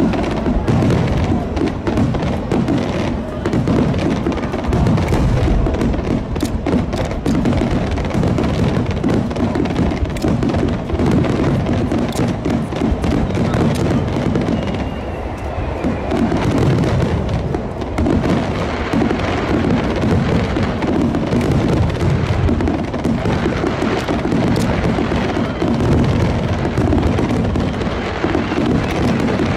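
Aerial firework shells bursting in a dense barrage: rapid, overlapping booms with crackling in between, without a pause.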